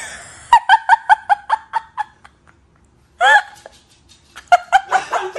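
High-pitched giggling: a quick run of about eight short laughs starting about half a second in, a single longer rising-and-falling laugh a little past the middle, and a few more quick laughs near the end.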